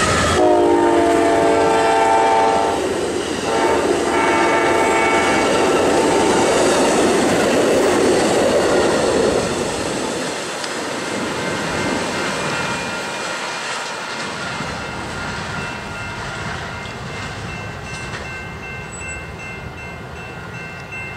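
Amtrak passenger train passing at speed. It sounds its horn in two blasts over the first five seconds or so, then the cars roll past with wheels clicking over the rail joints. The rolling noise fades as the train moves away, leaving the steady ringing of the grade-crossing bells.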